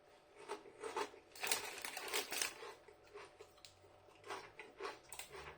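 Crinkle-cut potato crisps being chewed, with faint, irregular crunching and crackling in short clusters.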